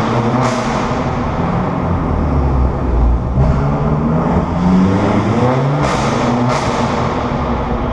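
Audi S3 with an ARMYTRIX valve-controlled exhaust, heard from inside the cabin as it accelerates. The engine note climbs and drops repeatedly through revs and gear changes, with sharp exhaust cracks about half a second in and twice around six seconds in.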